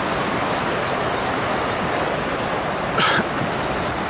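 Steady rushing of whitewater in an artificial canoe slalom channel, with one brief louder sound about three seconds in.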